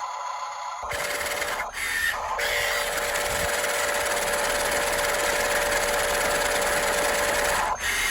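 Small electric motor and gearbox of a radio-controlled construction model running with a steady whine over a rough rasping noise. The sound starts abruptly about a second in and breaks off briefly a few times.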